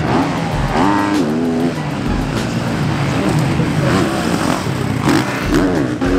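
Four-stroke motocross bike engine revving up and backing off in repeated surges, about four times, as the throttle is worked through jumps and corners.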